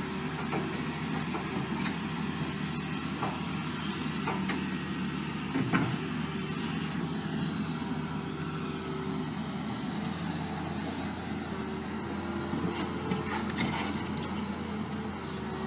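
A motor vehicle's engine running steadily, with scattered clicks and one sharp knock about six seconds in.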